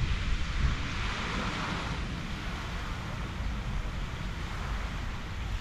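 Steady splashing of a fountain jet falling back into a pond, with gusts of wind rumbling on the microphone, strongest at the start.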